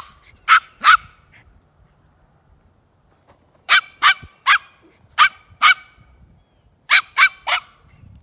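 A small dog barking at goats to herd them: sharp, high-pitched barks in three quick bursts, with a pause of about two seconds after the first burst.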